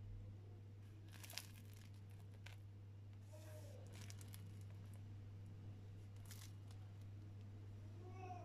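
Crisp crust of a home-baked round yeast loaf crackling under a pressing hand, in a few short bursts, over a low steady hum.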